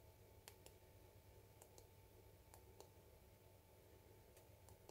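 Near silence: room tone with a dozen or so faint, irregular soft clicks.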